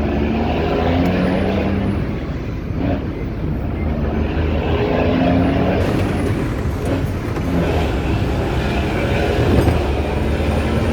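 Diesel truck engine running, a steady low rumble from the engine and exhaust.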